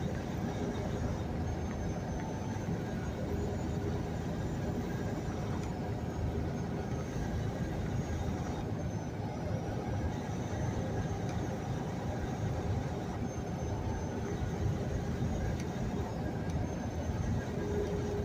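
Semi truck cruising, heard from inside the cab: a steady low rumble of diesel engine and road noise.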